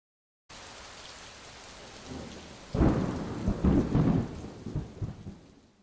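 Thunderstorm sound effect: steady rain hiss, with several peals of thunder rumbling from about halfway through, then fading away near the end.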